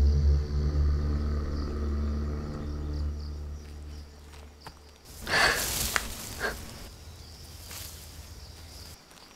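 Low, steady drone of a horror film score that fades over the first five seconds, followed about five seconds in by a sharp hissing rush of noise and a shorter one a second later.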